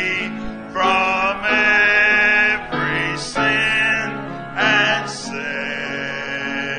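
A hymn being sung with instrumental accompaniment, in slow phrases of long held notes.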